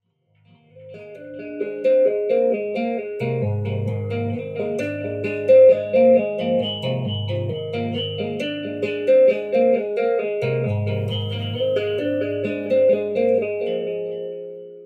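Electric bass played with two-handed tapping: a quick, repeating pattern of ringing higher notes, joined about three seconds in by sustained low bass notes. It fades in at the start and fades out near the end.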